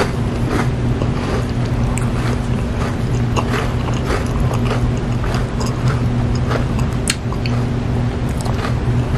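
Close-miked mouth sounds of eating a chocolate caramel soft-serve sundae: scattered wet lip smacks and tongue clicks, over a steady low hum.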